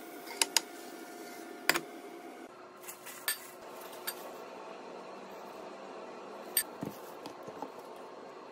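A metal spoon clinking against a glass mixing bowl while seasoning is spooned onto raw duck meat: several sharp, separate clinks spread through a few seconds.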